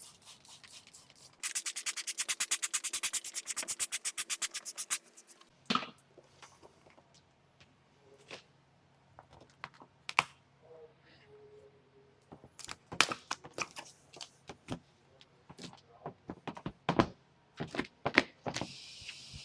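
Paint protection film being pulled and worked onto a car hood: a rapid, even crackle for a few seconds, then scattered sharp taps and knocks from handling the film, with a short spray hiss near the end.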